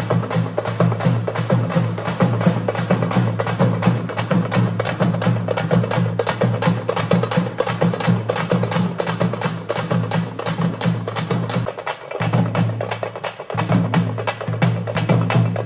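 Music of rapid, dense percussion strokes over a steady low tone, with the low tone dropping out briefly twice near the end.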